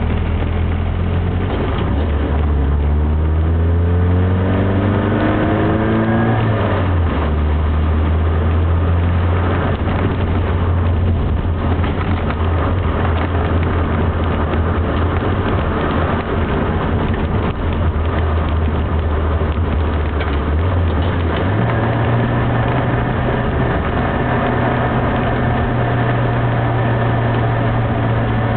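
Mini 1000's small four-cylinder engine heard from inside the car while driving a mountain road. It climbs in pitch while accelerating, drops at an upshift about seven seconds in, runs steadily, then steps up in pitch again around twenty-one seconds in, over steady road and tyre noise.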